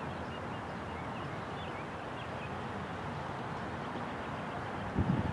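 Outdoor ambience: a steady background hiss with faint short high chirps, and wind buffeting the microphone near the end.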